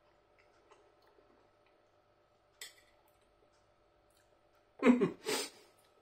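Faint steady room hum with a light click about two and a half seconds in, then two short, loud vocal noises from a man in quick succession near the end, not words.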